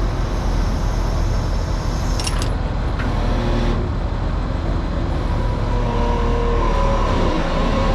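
Kobelco 210 excavator's diesel engine running steadily while the boom is lowered, with a brief metallic clink about two seconds in and a hydraulic whine from about halfway.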